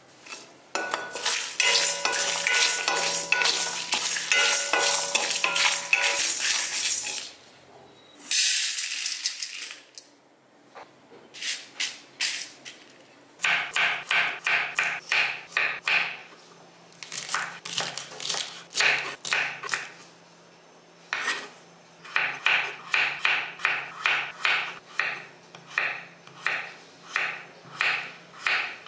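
Lentils and dried red chillies dry-roasting in an aluminium kadai, stirred and scraped with a wooden spatula, with some ringing from the pan. After a brief hiss, a chef's knife chops carrots and potatoes on a wooden board in steady strokes, two or three a second.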